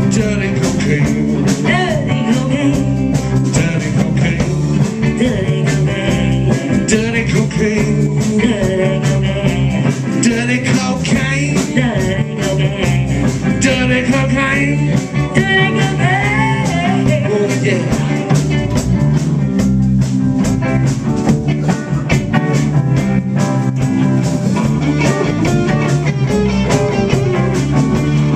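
Live blues band playing: electric guitars and drums over a steady bass line, with singing over the top.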